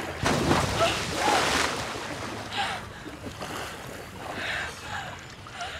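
Open water sloshing and splashing around people treading water, heaviest in the first couple of seconds, with a man's brief shouts breaking through now and then.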